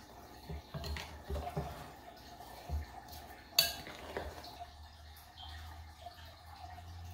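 Dough being mixed by hand in a glass jug, with soft knocks of the jug on a wooden table. About halfway through there is one sharp clink of kitchenware, then quieter handling.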